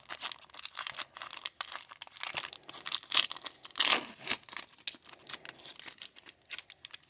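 A trading-card pack's wrapper crinkling and tearing open, with cards rustling against each other: a quick run of rustles and snaps.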